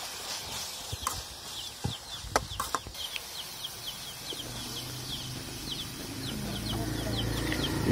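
A spoon knocks a few times against an aluminium kadai while stirring. Then domestic chickens cluck, with a run of quick, short, high chirps, and the clucking grows louder toward the end.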